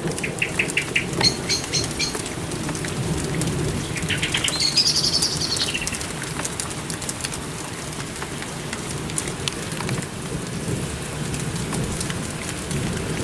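Steady rain falling on a garden, with a small songbird chirping: quick runs of high repeated notes in the first two seconds and another high call about four to six seconds in.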